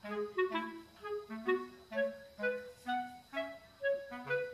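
Background music: a light melody of short, separate notes at a lively pace, with a lower part moving underneath.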